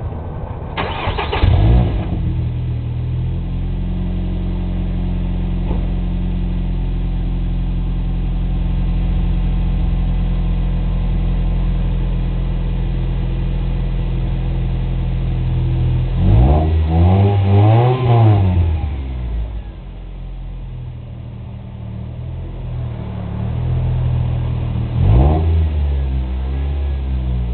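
2004 Nissan Sentra SE-R Spec V's 2.5-litre four-cylinder, breathing through a Megan Racing 4-1 header, catless midpipe and Apexi N1 cat-back exhaust, fires up with a flare about a second in and settles into a steady idle. Past the middle it is revved up and back down over a few seconds. It drops to a quieter idle, then is blipped once more near the end.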